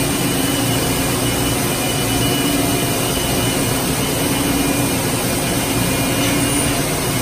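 Steady din of factory machinery on a corrugated plastic pipe production line running continuously, with a constant low hum and a faint high whine over an even mechanical noise.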